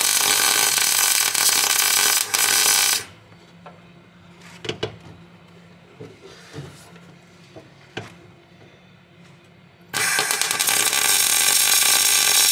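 Two bursts of welding on steel cage mounts, each a few seconds of loud, steady noise that starts and stops abruptly. The first ends about three seconds in and the second begins about ten seconds in. Between them come a few light knocks of metal being handled.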